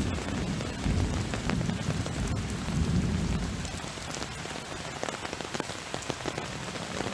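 Heavy rain pouring down, with scattered drop hits, and a low rumble of thunder in the first half that fades out about four seconds in.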